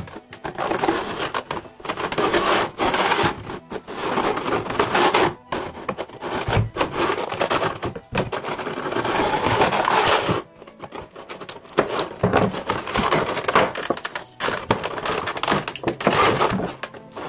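Clear plastic blister packaging and a plastic bag crinkling and crackling, with sharp clicks, as they are handled and pulled apart.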